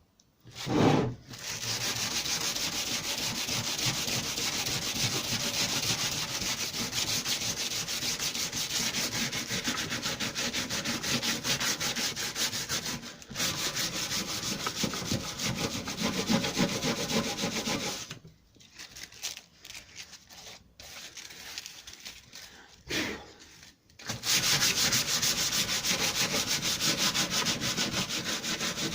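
Continuous sanding of hardened metal filler on a lawnmower deck, an even scraping hiss. A short knock comes just before it starts; it pauses briefly about halfway, then stops and starts in short spurts for several seconds before running steadily again near the end.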